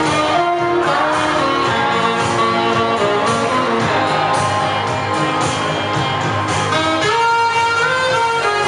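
Saxophone playing a melody of held notes over a recorded backing track with guitar, played through small floor speakers.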